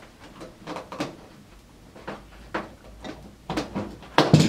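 Pliers and fingers working a rubber power-cord grommet into its hole in a metal light-fixture housing: scattered handling clicks and knocks, the loudest pair near the end.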